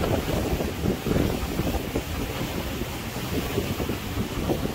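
Wind buffeting the microphone on the deck of a boat at sea: a steady rush with an uneven low rumble.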